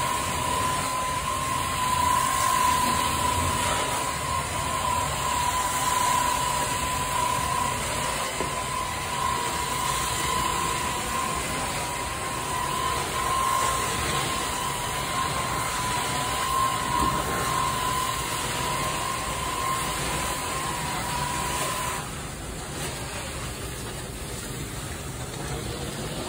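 Carpet-cleaning extraction wand being pushed over carpet, its suction making a steady rushing, rattling noise with a high whine. About four seconds before the end the whine stops and the noise gets a little quieter.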